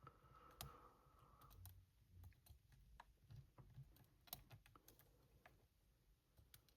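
Faint, irregular clicks and ticks of a lock pick working the pin tumblers inside a Yale 125 laminated padlock during single-pin picking, with one sharper click a little past the middle.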